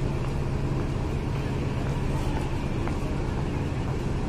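Diesel locomotive engine idling: a steady low hum with no change in level.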